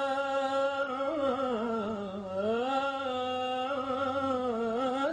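A man's solo voice singing a nasheed, drawing out one long melismatic vowel on the 'yā' of 'ʿalayka yā'. The note holds steady, then wavers in ornaments and dips about two seconds in, before rising back to a held note that breaks off at the end.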